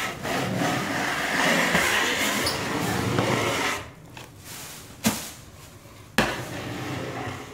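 Wide drywall knife scraping soaked wallpaper off a wall, a rough scraping for about four seconds, then two sharp knocks.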